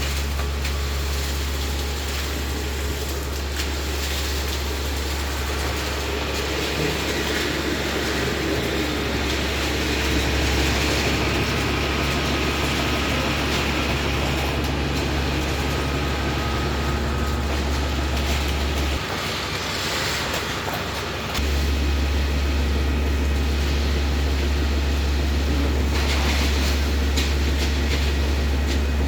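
Heavy machinery running steadily on a concrete pour, with a strong low rumble that drops for a couple of seconds about two-thirds of the way through and then returns.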